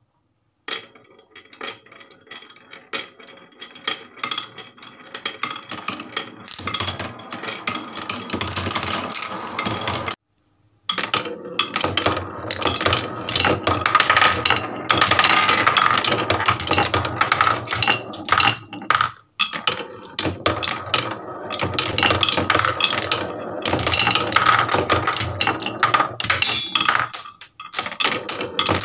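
Marbles rolling and clattering down a wooden HABA marble run: a dense stream of small clicks and knocks that grows thicker and louder after about six seconds, breaking off briefly around ten seconds in.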